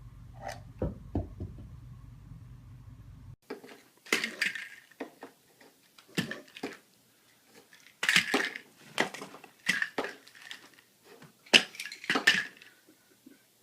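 Hard objects clattering and knocking, like dishes or small household items being knocked about. A few light knocks over a low hum come first, then repeated bursts of clatter.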